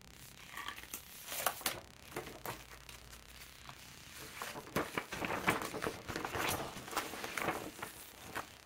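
Sheets of printed silk-finish wrapping paper being lifted off a stack and handled, the paper rustling and crackling in short spells, busiest about a second and a half in and again from about five to eight seconds in.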